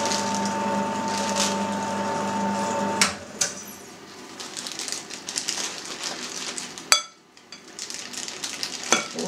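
Electric meat grinder motor running with a steady hum, switched off with a click about three seconds in. Then come plastic-bag rustling and light clattering as the mince is handled, with one sharp click about two-thirds of the way through.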